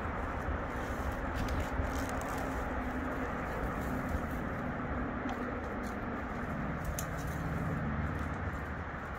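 A motor vehicle running nearby: a steady low rumble with an engine hum that holds through the middle and drops lower near the end.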